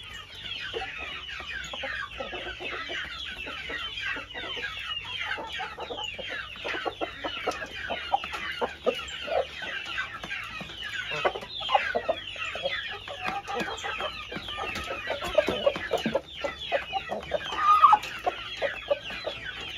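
A flock of young chickens clucking and cheeping continuously while they feed, with many short, high, falling chirps. One louder call stands out near the end.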